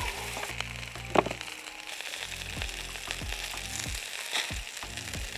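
Butter-basted chicken sizzling on a charcoal grill, with butter dripping onto the hot coals and flaring. There is a single sharp click about a second in.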